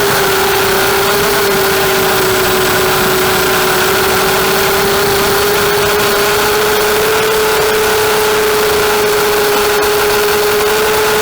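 250-size FPV racing quadcopter's motors and propellers whining at a steady pitch, sagging slightly a few seconds in and then slowly rising toward the end.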